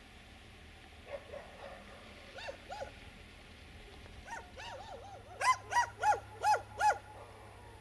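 A dog barking: a few quiet yelps, then a quicker run of barks, ending in five loud barks about three a second.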